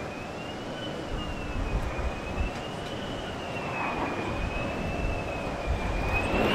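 Lockheed Martin F-35A's Pratt & Whitney F135 turbofan on landing approach: a high whine that wavers slowly up and down over a steady rumble.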